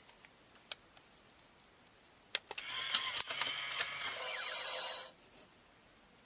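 Ultimate Mechanix Unicorn Gundam toy figure's transforming mechanism running: a few light clicks, then a whirring, clicking mechanical sound from a little over two seconds in, lasting about two and a half seconds.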